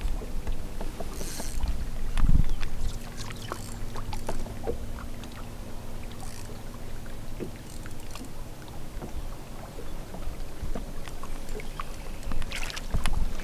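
Sounds aboard a bass boat while a fish is played on a spinning rod: a low rumble of wind and water, a faint steady hum, and many small clicks and ticks from the spinning reel and tackle, with one louder low thump about two seconds in.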